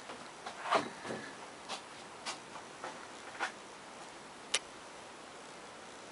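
Scattered light clicks and taps, about eight of them at uneven intervals, the sharpest a little after four seconds in, over a steady low hiss.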